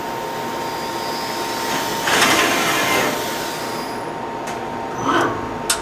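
Hitachi Seiki HT23J CNC lathe running with a steady hum and a thin high whine. A hissing rush lasts about a second, starting about two seconds in, and a shorter rush and a few sharp clicks come near the end.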